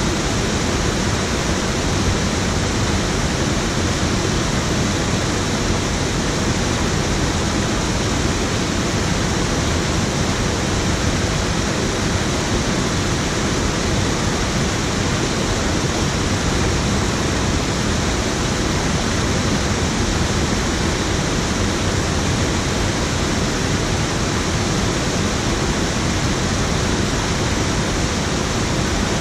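Water pouring over a low weir into a pool: a steady, even rush of falling water.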